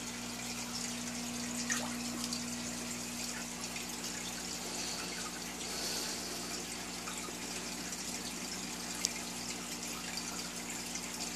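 Aquarium filter water trickling and splashing steadily, over a steady low electrical hum, with a couple of small clicks.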